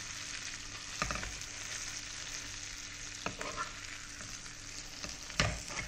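Butter and chilli-Schezwan masala sizzling steadily in a hot pan as a stuffed burger bun is turned in it. Three brief knocks come through, about one, three and five seconds in.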